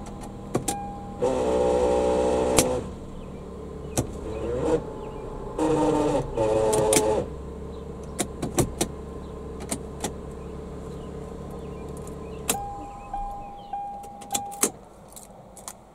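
2002 Lexus RX300's U140 automatic transaxle grinding twice, each time for about a second and a half, over the engine idle as the shift lever is moved into gear; the owner takes it for gear-on-gear noise from sheared teeth or lost pins in the planetary gear set. Clicks from the shift lever, and the engine stops about three-quarters of the way through.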